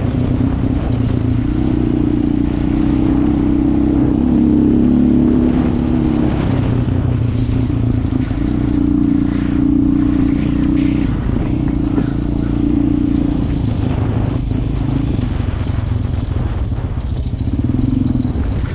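Quad bike engine running under way on a loose gravel track, its pitch rising and falling as the throttle changes.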